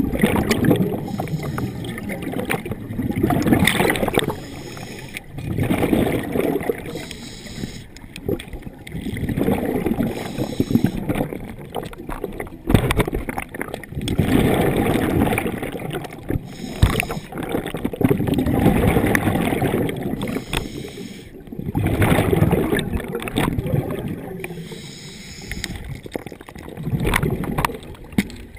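Scuba diver breathing through a regulator underwater: a gurgling rush of exhaust bubbles about every four seconds, with quieter inhalations between.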